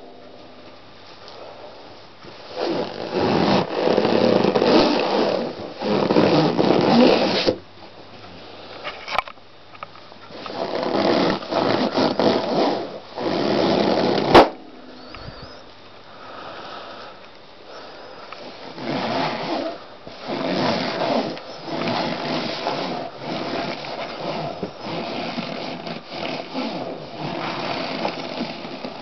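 Latex balloons squeaking and creaking as a foot presses down on them and squashes them against a sheet, in long rasping stretches. About halfway through, one balloon bursts with a single loud, sharp pop.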